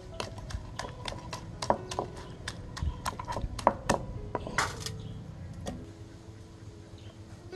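Wooden pestle pounding ingredients in a mortar, a rapid run of knocks, with a metal spoon scraping the mix down against the mortar's side. The pounding stops about two-thirds of the way through.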